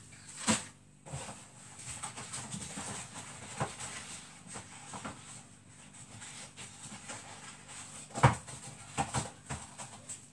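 Scattered knocks and clatter of kitchen items being handled, with a cluster of sharper knocks near the end.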